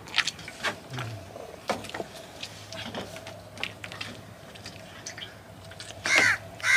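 A knife cuts and scrapes boiled sea cucumbers on a wooden board and over an aluminium plate, making scattered small clicks and taps over a faint steady hum. Near the end a crow caws loudly, twice.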